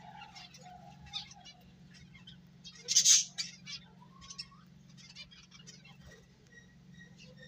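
Pet finches chirping: a scatter of short, high chirps with one louder call about three seconds in, over a faint steady low hum.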